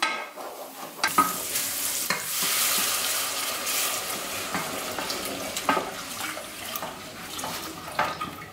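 Saucepan of shallots frying in butter sizzling as liquid is poured in from a measuring jug, the hiss swelling about a second in and then easing off. A wooden spoon stirs and knocks against the pan now and then.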